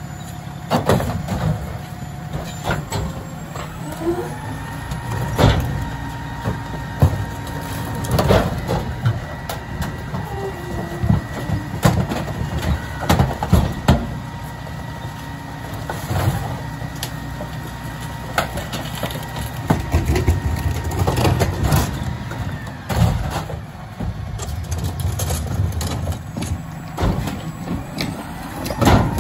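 Rear-loader garbage truck running at the curb, with repeated sharp knocks of trash cans banging against the hopper as they are emptied by hand. A steady high whine runs through most of it.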